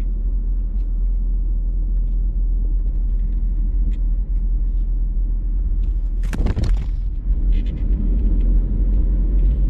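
Steady low rumble of a running vehicle engine. A brief loud noise comes about six seconds in.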